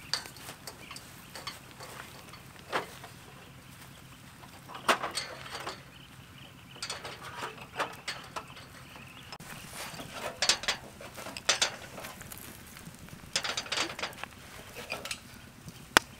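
Irregular clinks and clatters of small bowls and a metal grill sheet being handled and set down over a charcoal fire, in short clusters every second or two.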